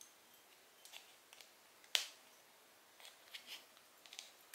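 Small hard clicks and taps of spinning-reel parts and tools being handled, with one sharp snap about two seconds in and clusters of lighter clicks around it.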